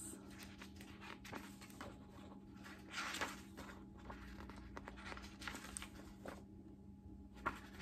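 Pages of a hardcover book being turned and fanned by hand: faint, irregular paper rustles and light ticks, with a faint steady hum underneath.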